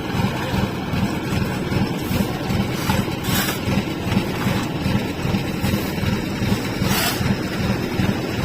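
An engine running steadily, with wind noise on the microphone and a couple of brief hissy gusts.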